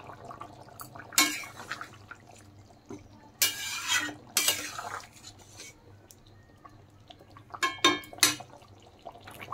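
Metal spatula scraping and clinking against a kadai while stirring a simmering curry. There are a few separate strokes: one about a second in, two longer scrapes in the middle, and a quick cluster near the end.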